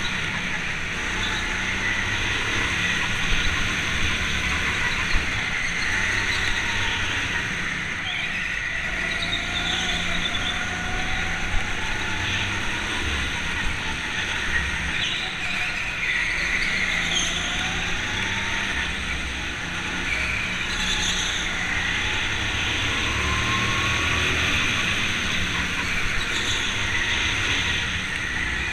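Go-kart running at speed, heard from onboard: a continuous motor and rolling rumble whose pitch rises and falls through the corners, with a few sharp knocks.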